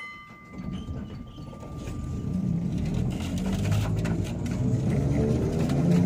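A tram running and getting louder, with a steady low motor hum and scattered clicks and knocks from the running gear. A ringing tone fades out over the first two seconds.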